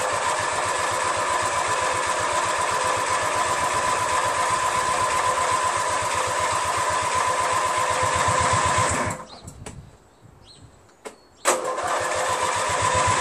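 Electric starter cranking a 14 hp Briggs & Stratton opposed-twin engine on a Craftsman lawn tractor without it catching: a steady whine over a regular beat. It stops about nine seconds in, a click follows, and cranking starts again a second or so later. The engine won't fire because the fuel shut-off valve is closed.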